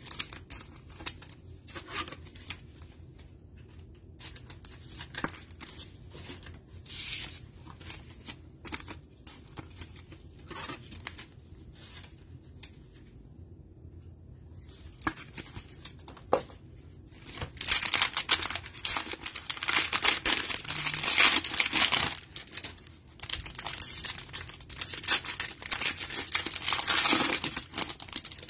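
Cellophane wrapper of a trading-card cello pack being torn open and crinkled, in two loud stretches over the second half. Before that come soft clicks and rustles of cards and plastic sleeves being handled with gloved hands.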